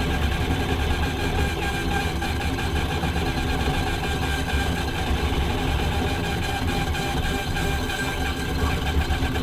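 6040 CNC router running a machining program at high feed rate: the spindle's steady whine over the drone of the stepper-driven axes moving fast. The speaker calls it going crazy.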